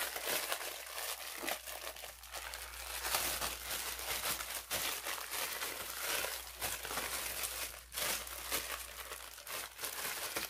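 A sealed parcel's packaging being opened by hand: plastic and paper crinkling and tearing, with many irregular sharp crackles and rustles.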